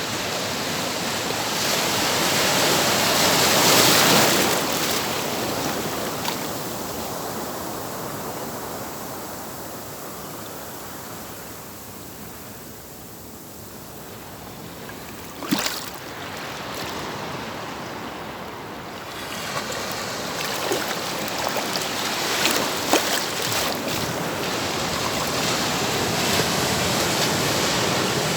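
Ocean surf: a wave breaks and washes in, surging loudest about four seconds in, then ebbs away before the next wash builds with small crackles. A single sharp tap about halfway through.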